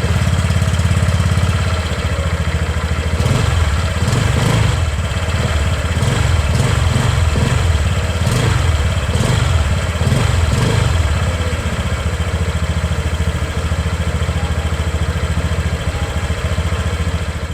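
Honda Click 125i scooter's 125cc single-cylinder four-stroke engine running at idle through its stock exhaust, a steady beat whose pitch wavers up and down a few times in the middle.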